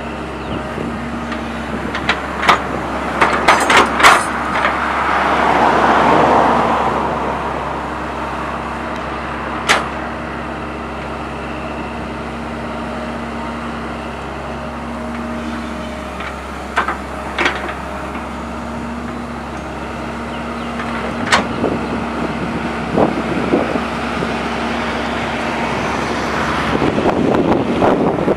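Sumitomo hydraulic excavator's diesel engine running steadily as it digs and dumps soil, with sharp clanks from the bucket and boom linkage now and then. There is a broad swell of noise about six seconds in.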